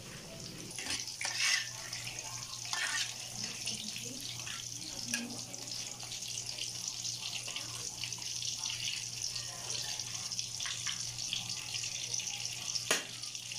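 Breaded pork chops deep-frying in hot oil in a wok: a steady sizzle with a fine crackle. A few light clicks from a metal spatula against the pan, with a sharper knock near the end.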